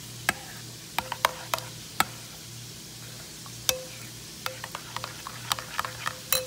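A utensil stirring sauce in a bowl, clinking against the sides in sharp, irregular taps that ring briefly; the taps come quicker in the second half.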